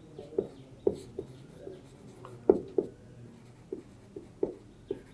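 Marker pen writing on a whiteboard: an irregular series of short strokes and taps of the tip on the board.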